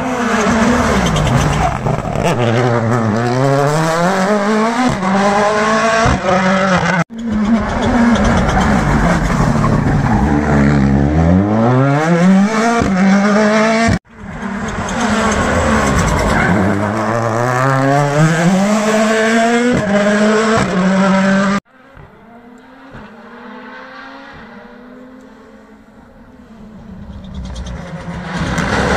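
WRC Rally1 hybrid rally cars' turbocharged four-cylinder engines, three passes through a hairpin one after another. In each, the engine note falls as the car slows into the bend, then climbs as it accelerates away, and each pass cuts off abruptly. In the last quarter a further rally car is heard approaching, faint at first and growing louder.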